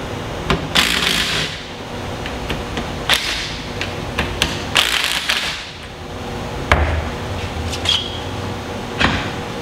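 Cordless drill running in several short bursts as it backs out the bolts holding a clutch tool on a Polaris RZR engine, with sharp clicks of metal parts being handled.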